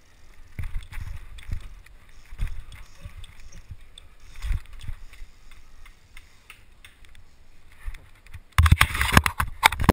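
Trials mountain bike tyres thudding onto plywood boxes as the rider hops and balances, with light clicks and scuffs between the landings. Near the end, a loud burst of rubbing and knocking right at the microphone.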